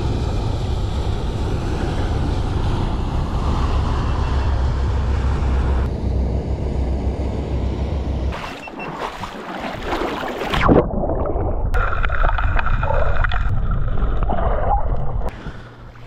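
Motorboat ride: a boat engine's low steady rumble with rushing water and wind noise, changing abruptly about halfway through to sharper splashing and a jumble of water sounds.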